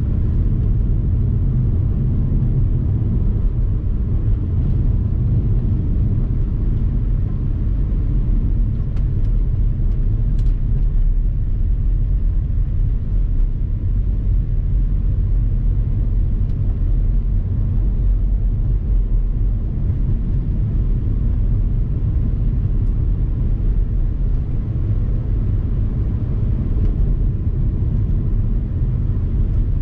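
Steady low rumble of a vehicle driving at speed.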